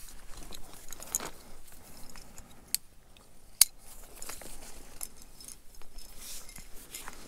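Carabiners and climbing hardware on a harness clinking against each other and the rope, with rope and clothing rustling during a hand-over-hand descent of a fixed rope. Two sharp metal clicks stand out near the middle, just under a second apart, the second the loudest.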